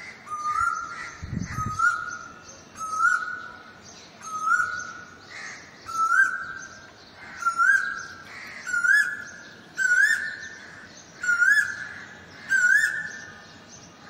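Asian koel calling: a series of about ten clear whistled notes, each sliding up quickly and then held, repeated roughly every second and a bit, climbing steadily in pitch and growing louder through the series.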